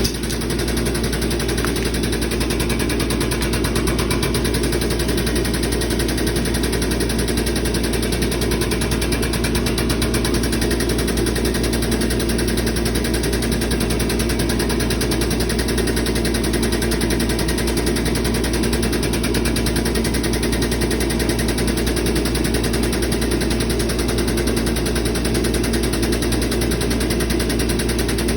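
Air-over-hydraulic jack of a 20-ton pneumatic forging press chattering in a fast, steady, unbroken rattle as its air pump drives the ram.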